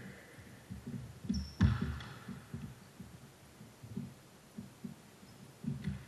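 Basketball bouncing on a gym floor amid players' footsteps: a run of low thumps a few times a second, with a louder bang about one and a half seconds in.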